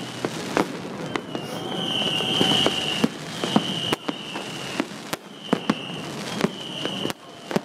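Fireworks exploding: an irregular run of sharp bangs and crackles from aerial shells, with a high whistling tone that comes and goes several times between them.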